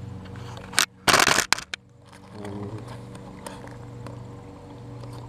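Plastic packaging crinkling and crackling in the hands, with one loud rustling burst of about half a second a second in, followed by a few short clicks.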